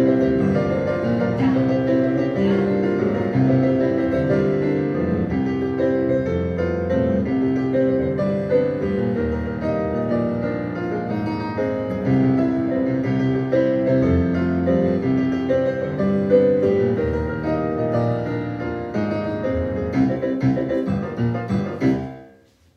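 Solo piano playing a ballet class accompaniment for a jump exercise in a steady, even pulse. The music dies away just before the end, then a new chord begins.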